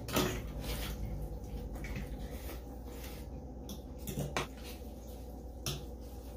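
Eating noises at a meal table: a metal fork and spoon clinking and scraping against a ceramic bowl of noodles, with a few sharp clicks near the start, about four seconds in and near the end.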